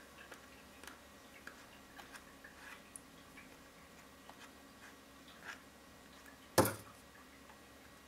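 Faint rustling and small ticks of paper and cotton thread being handled as thread ends are tied into knots, with one sharp knock near the end.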